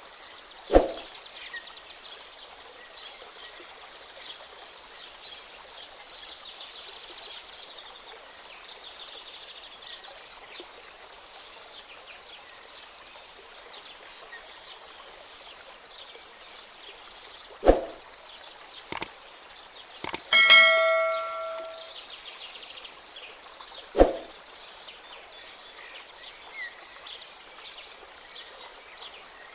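A faint, steady, hissy outdoor-like background broken by several sharp single knocks, and one bell-like ding about two-thirds of the way through that rings on for about a second.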